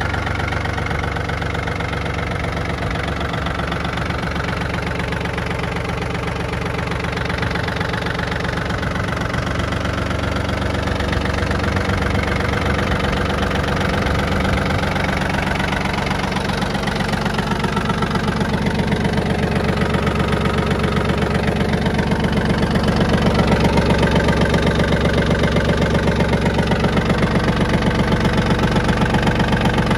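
Yanmar F-180 compact tractor's diesel engine idling steadily, growing a little louder in the second half.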